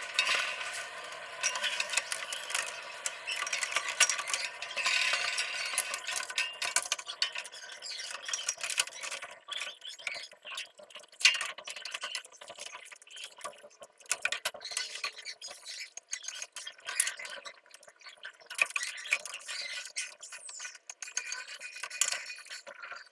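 Irregular run of small hard clicks, clinks and scraping, like hard objects being handled and knocked together, with no pauses long enough to be quiet.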